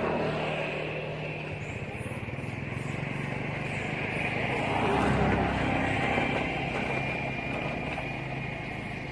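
A motor vehicle's engine running, growing louder to a peak about five seconds in and then fading.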